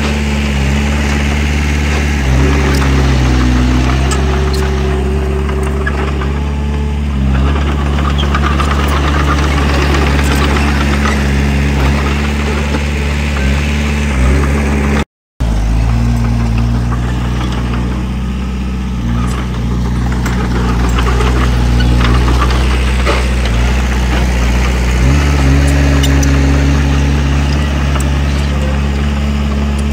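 Diesel engine of heavy earthmoving equipment running under load, its engine note shifting up and down several times. The sound drops out for a moment about halfway through.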